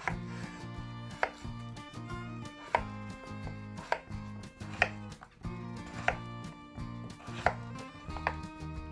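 Chef's knife cutting peeled raw potatoes into large cubes on a bamboo cutting board: about eight sharp knocks as the blade hits the board, roughly one a second.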